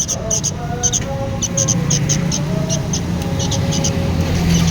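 Young sooty-headed bulbul chicks chirping, short high chirps repeated several times a second, over a steady low hum.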